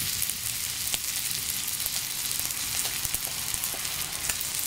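Steak sizzling in a hot cast-iron skillet: a steady frying hiss crackling with many small spits and pops.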